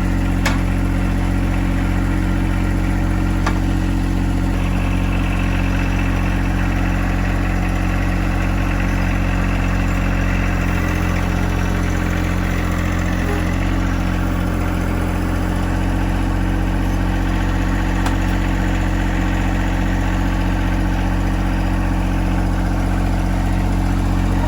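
Wood-Mizer LX55 portable band sawmill running steadily, its engine note dipping slightly about halfway through.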